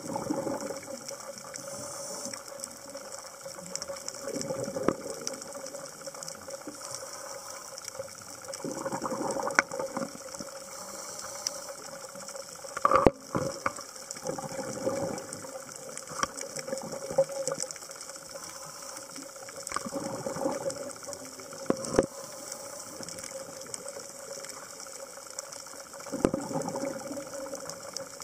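Scuba regulator breathing recorded underwater: bursts of exhaled bubbles every few seconds, the strongest about halfway through, over a steady hum.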